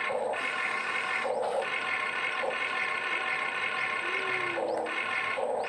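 Huina 1592 RC excavator's electric motors whining as the boom and bucket move: a steady whine, with a lower buzz that cuts in and out in short spurts as the motors start and stop.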